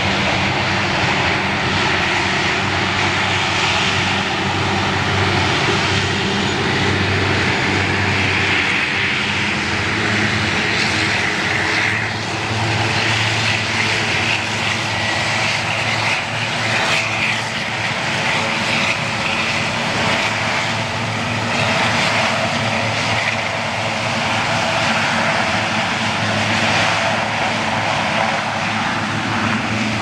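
Canadian Coast Guard hovercraft running steadily: the drone of its engines and ducted propellers over a broad rushing of air and spray as it crosses the river ice to break it up.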